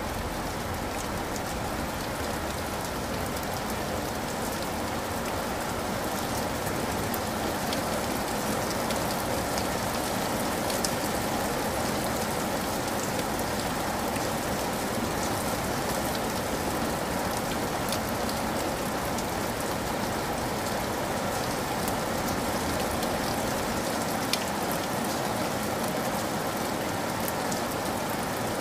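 Steady rain, an even hiss with scattered drop ticks.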